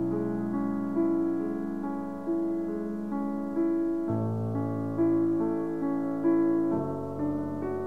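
Slow background piano music, single sustained notes struck about every 1.3 seconds over held low chords that change about four and seven seconds in.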